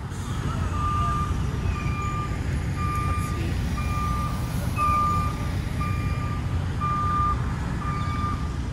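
Vehicle reversing alarm beeping steadily, about once a second, over a low engine rumble: a truck backing up.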